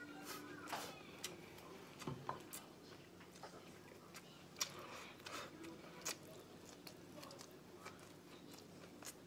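Faint sounds of a person eating by hand: scattered small clicks and mouth sounds of chewing as fingers work rice and meat on a plate, over a faint steady hum.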